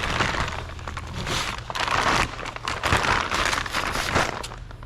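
Packaging crinkling and rustling as a new brake booster is unwrapped, in irregular crackly bursts, over a steady low hum.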